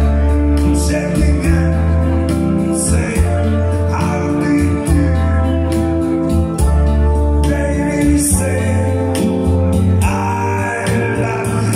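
Live music from a one-man band: a man singing into a microphone over an electronic keyboard, with long held notes over a steady bass line.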